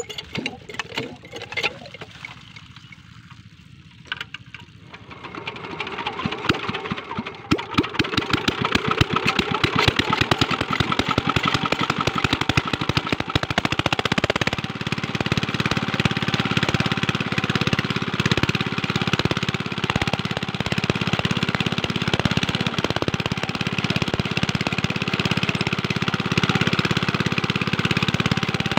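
Small single-cylinder Chinese diesel engine driving a water pump. A few clicks and knocks come first; then, about five seconds in, the engine is started and picks up speed. It then runs steadily with a fast knocking beat.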